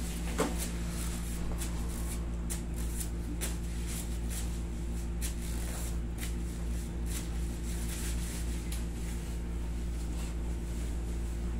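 Hands rubbing and kneading bare feet during a foot massage: soft, scattered skin-rubbing rustles and light taps over a steady low hum of room machinery, with one sharper click about half a second in.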